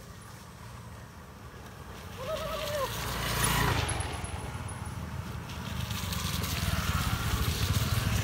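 Small motor scooter engines running as the scooters ride toward and past on a dirt trail, getting louder as they near. There is a swell about three and a half seconds in, and the engines are loudest near the end as one passes close. A brief high tone sounds a little after two seconds.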